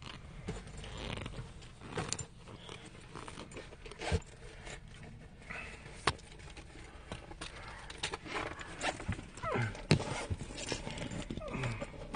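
Handling noise from a phone camera being moved about: rustling and scraping with scattered knocks and clicks, and a few short squeaks near the end.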